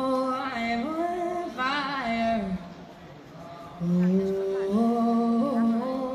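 Female voice singing long held notes through a microphone and street amplifier, gliding between pitches. The singing breaks off for about a second near the middle, then carries on.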